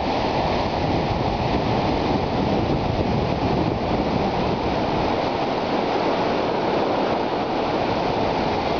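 Muddy flash-flood water rushing steadily down a dry desert riverbed, still flowing with too much force to cross.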